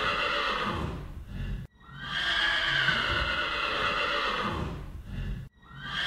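An animal call: a long, noisy cry that falls slightly in pitch, repeated over and over in identical copies about every four seconds, each one cut off abruptly before the next begins.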